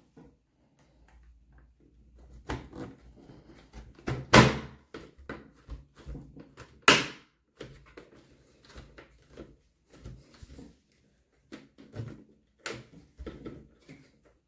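A car's plastic instrument cluster being pressed and snapped into its plastic surround: a string of plastic knocks and clicks with quieter rubbing and tapping, the two loudest sharp snaps about four seconds in and about seven seconds in.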